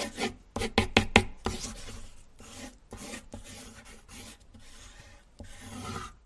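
Pencil scratching on paper, a drawing sound effect: a quick run of sharp strokes about a second in, then longer scratchy strokes.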